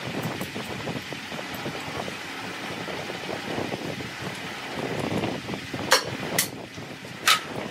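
Steady workshop background rumble, with three sharp knocks near the end, the last ringing briefly.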